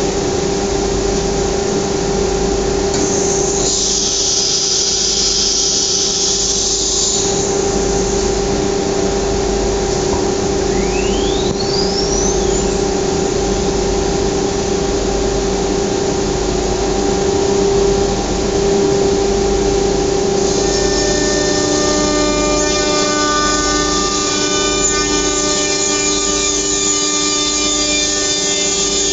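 CNC router running steadily, a constant whine over a hiss of machine noise. About three seconds in a burst of high hiss lasts some four seconds, a whine rises briefly near eleven seconds, and from about twenty seconds a cluster of steady higher tones joins in.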